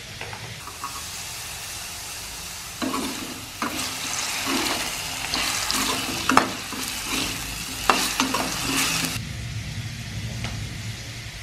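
Potato strips frying in hot oil in a wok, sizzling, while a steel spoon stirs them and clicks and scrapes against the pan. The sizzle and spoon strokes are loudest from about three seconds in until about nine seconds, then drop back to a quieter sizzle.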